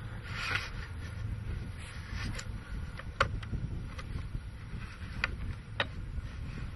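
Wind rumbling on the microphone, with a few soft rustles and three sharp clicks in the second half.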